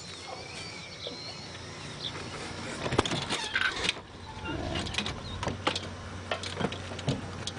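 Aluminium door of an old camper trailer being unlatched and swung open: a run of sharp clicks and knocks from the latch and door, loudest about three seconds in, after a few high chirps in the first second or so.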